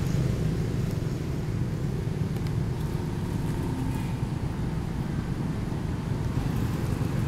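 A steady low rumble with no clear strikes or calls.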